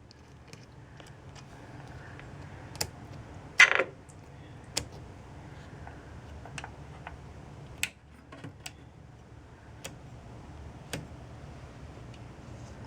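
Buttons and switches on a Com-Ser Laboratories BR-1001-A radio service monitor being clicked one at a time, roughly once a second at an uneven pace, with the loudest, longer clack about three and a half seconds in. A low steady hum runs underneath.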